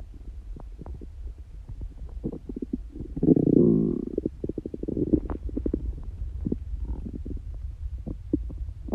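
A human stomach growling: a low rumble with many small gurgling pops, and one louder, drawn-out gurgle about three seconds in. The owner says these growls come neither from hunger nor from a stomachache.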